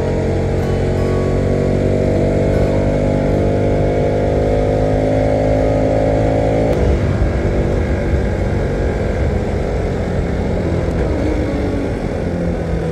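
Motorcycle engine running under load, its note rising slowly for about seven seconds, then cutting away suddenly into a rough rumble of road and wind noise.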